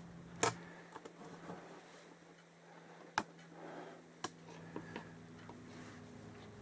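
A few sharp clicks and taps from handling the gear oil bottle and funnel while the shaft drive final drive is slowly filled, over a faint steady low hum.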